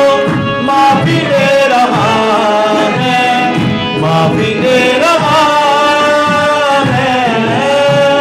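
Music from a Hindi Christian devotional song: a melody that slides and wavers in pitch over a rhythmic accompaniment, between sung lines.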